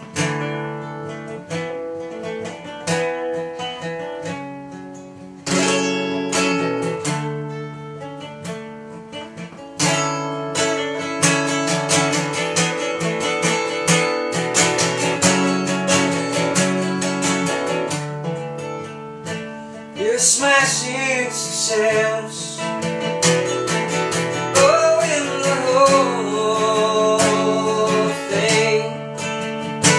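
Steel-string acoustic guitar with a capo, played solo in chords and picked notes. The playing grows denser and louder about ten seconds in, and a wavering melody line rises over it from about twenty seconds in.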